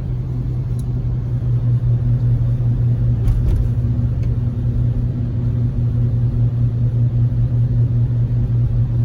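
Steady low drone of knobby tires rolling on the road, heard inside the cabin of a Chevrolet Tahoe Z71 while driving; it grows a little louder about two seconds in.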